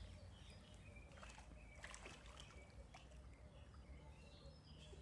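Faint splashing and lapping of water in a swimming pool as a small monkey swims, with a few faint chirps over a low steady hum.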